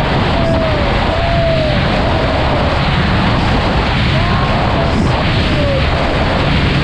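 Heavy wind buffeting on an action camera's microphone while riding a Bajaj Pulsar NS200 motorcycle at road speed, with its single-cylinder engine running steadily underneath.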